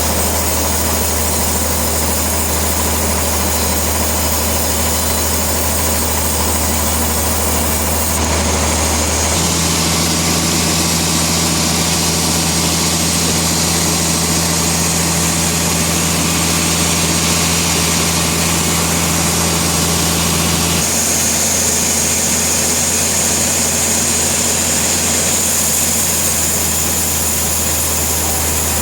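Sawmill machinery running with a steady, loud engine-like drone. Its tone changes abruptly twice, about a third and two-thirds of the way through.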